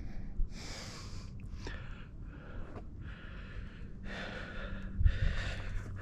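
A hiker breathing hard, in and out about once a second, with a footfall thud about five seconds in.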